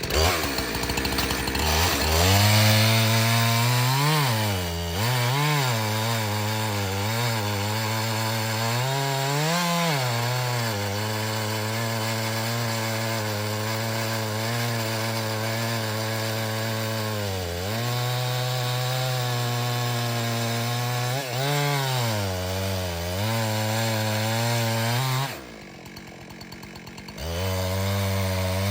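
Two-stroke chainsaw running at high revs and cutting through a log, its pitch sagging and recovering several times as the chain bites under load. Near the end it drops off for about two seconds, then picks up again.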